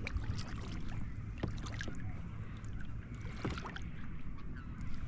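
Water moving around a kayak on a lake, with scattered small clicks and knocks.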